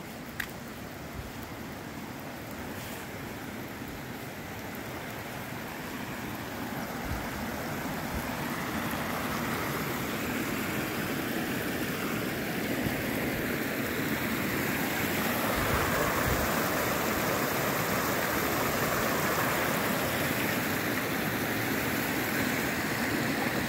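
Mountain stream rushing over rocks, growing steadily louder as it is approached.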